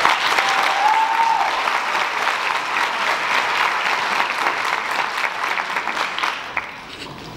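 Audience applauding, with a short high call about a second in; the clapping dies down near the end.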